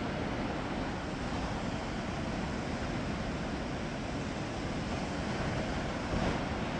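Heavy ocean surf breaking around rocks below, a steady, even rush of noise.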